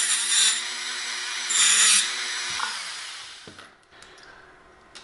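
Handheld rotary tool with a small cutoff wheel whining steadily and grinding into the metal can of a TO-3 power transistor to cut it open. The grinding is loudest about half a second in and again from about a second and a half to two seconds in. The tool then winds down over the next second or so, and a few faint clicks follow. The transistor is the power supply's main switching transistor, which has failed as a dead short between emitter and collector.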